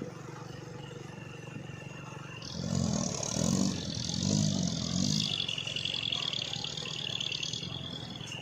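Truck engine running under load, with a louder stretch about two to five seconds in where the revs rise and fall three times.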